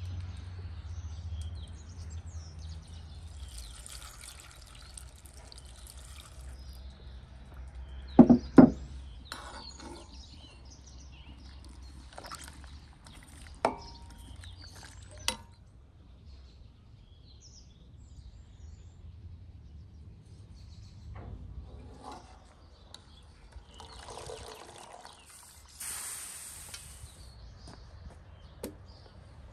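Outdoor cooking sounds: two sharp knocks about eight seconds in, which are the loudest thing, and a few lighter clicks of utensils. Around them are stretches of hissing, splashing noise, like liquid being poured or stirred.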